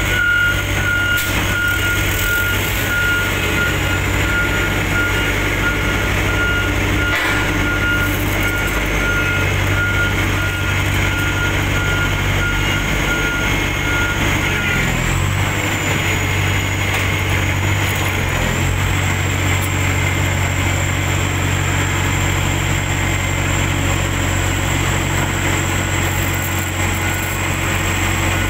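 Heavy diesel engines of asphalt paving machinery running steadily, with a reversing alarm beeping at a regular pace that stops about halfway through. The engine note shifts briefly soon after the beeping stops.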